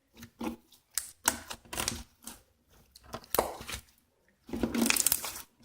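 Slime being squeezed and kneaded by hand: irregular sticky clicks and pops, with a longer, louder run of squishing about a second before the end.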